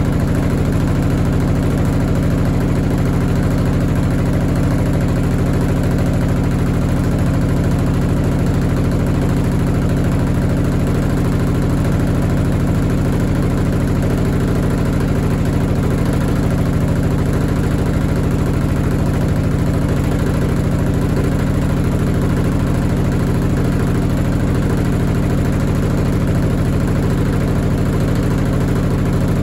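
Washing machine running at a steady high speed, most likely in its spin cycle: a loud, even motor-and-drum hum that does not change in pitch or speed.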